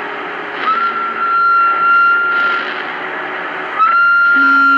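CB radio receiver hiss and static between skip transmissions, with a steady high whistle from carriers keying up over each other: one about two seconds long starting about a second in, and another near the end.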